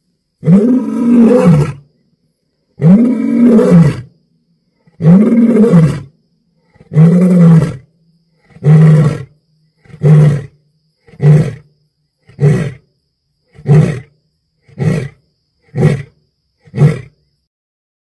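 Male African lion roaring in a full bout: a few long, loud roars that rise and fall in pitch, followed by a run of shorter grunting roars that come quicker and closer together, about one a second near the end.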